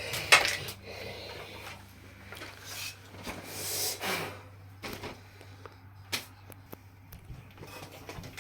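Handling noises of work on fittings: a sharp knock just after the start, a rustling scrape about four seconds in, and scattered light clicks, over a faint steady hum.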